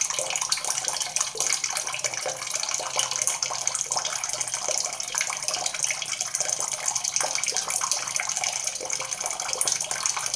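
Water pouring steadily from a spout or shower head and splashing below, an even hiss with fine patter that does not change.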